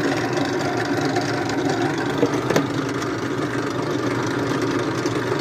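Drill press's single-phase induction motor running steadily with a low hum, on a newly fitted 6 µF 450 V capacitor; its current reads near normal, a sign that the capacitor fault is cured. A single sharp click about two and a half seconds in.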